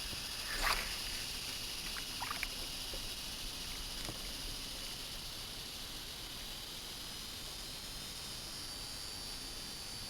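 Water lightly sloshing around a small skiff's hull over a steady high hiss, with a few small sharp knocks or splashes about a second in and again around two seconds in.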